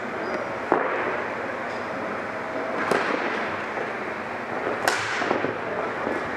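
Sharp cracks of ball hockey sticks striking the ball and the ball hitting the boards, four times, the first the loudest, over a steady background of court and player noise.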